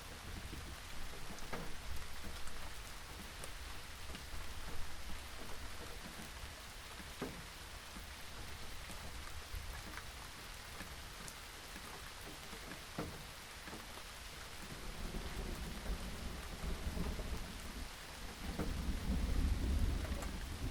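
Steady rain falling, with scattered single drops ticking sharply. A low rumble of thunder builds over the last few seconds.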